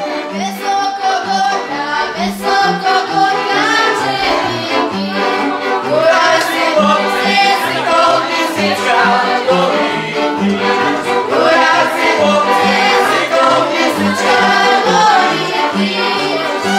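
Górale folk band of fiddles and a bowed folk bass playing a lively tune, the bass marking a steady pulse under the fiddle melody, with voices singing along.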